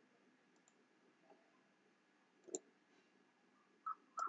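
Computer mouse clicks, faint, with one louder click about two and a half seconds in. Near the end a short higher-pitched sound begins.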